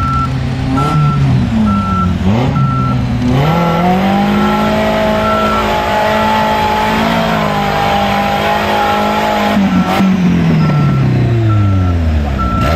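Case backhoe loader's diesel engine revving up about three seconds in, holding high for several seconds, then slowly winding down. Its reversing alarm beeps steadily, about two beeps a second, fading during the high revs.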